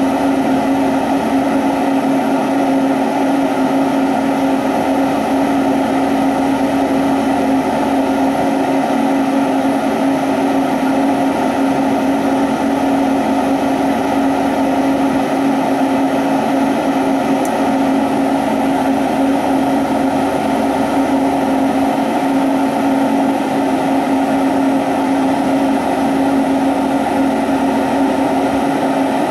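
Glassworking bench torch flame burning steadily: an even rushing noise with a steady low hum running through it.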